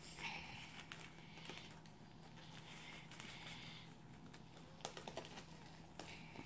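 Faint rustling and scattered small clicks of a doll's cardboard packaging insert being picked at by hand to free the doll.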